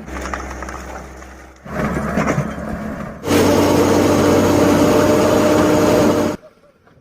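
Heavy diesel machinery engines running, in short segments that cut abruptly from one to the next, with the loudest stretch in the second half; the sound drops away to silence near the end.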